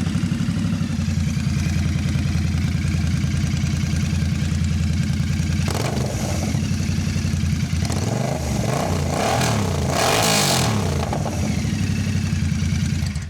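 Royal Enfield Bear 650's parallel-twin engine running with no exhaust fitted, open headers, very loud. It idles steadily, then is revved several times about two-thirds of the way in before settling back, and the sound cuts off abruptly.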